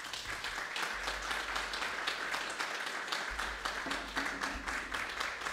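Audience applauding at the end of a performance: dense, steady clapping from a seated crowd.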